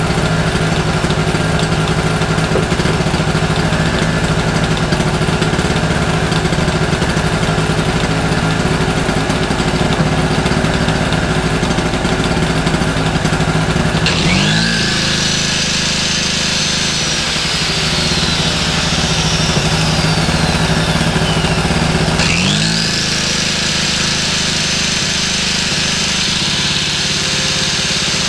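Small two-stroke petrol generator running steadily. About halfway in, an angle grinder powered from it is switched on twice: each time it spins up with a rising high whine, runs briefly, then winds down. The generator's note dips each time the grinder comes on, as it takes the electrical load.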